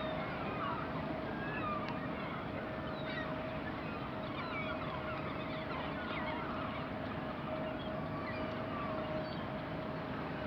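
A large flock of seabirds calling all at once, many short overlapping calls, over a steady engine hum.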